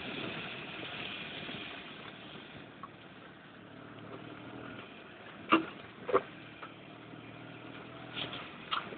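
Dune buggy engine running steadily at low revs, easing off a few seconds in. Two loud sharp knocks come a little past halfway, with a few smaller knocks near the end.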